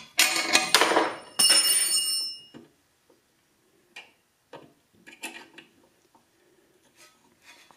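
Metal-on-metal clinks from a hex key against the steel blade-guide block of a Delta 9-inch bandsaw, the last one left ringing, followed by a few faint taps and clicks as the guide is set and locked.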